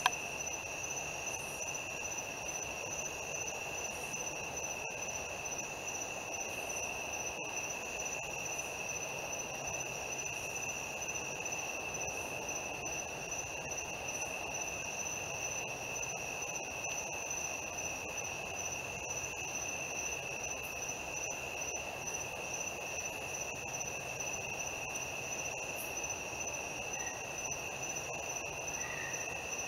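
Night insects singing in a steady, unbroken chorus: two continuous high trills, the higher one faintly pulsing, over a soft hiss.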